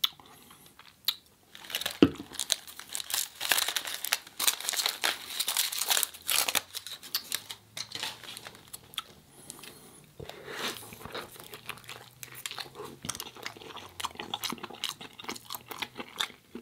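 A food wrapper being crinkled and torn open, with bouts of chewing; the crinkling is heaviest in the first half and lighter later.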